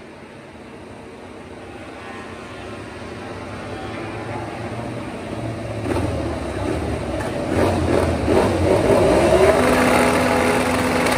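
MotoGP four-cylinder racing motorcycle approaching, its engine growing steadily louder, with the engine note rising and falling in the last few seconds.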